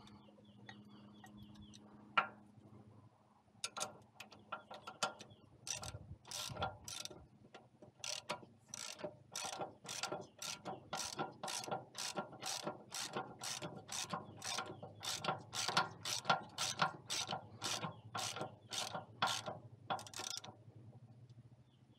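Hand ratchet with a socket clicking in repeated back-strokes as nuts are run down. The clicks come in short bursts about twice a second, starting a few seconds in and stopping near the end.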